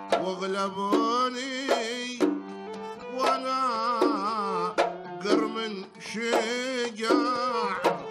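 Omani traditional ensemble playing an instrumental passage: a violin melody with wavering pitch over oud and a steady beat of hand drums.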